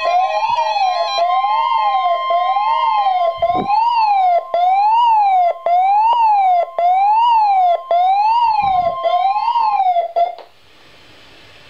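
NOAA weather radio sounding the National Weather Service 1050 Hz alarm tone, a steady high tone, with a warbling siren-like alarm rising and falling about once a second over it, as from a weather-radio receiver set off by the tone. Both cut off about ten seconds in, leaving a steady hiss of radio static.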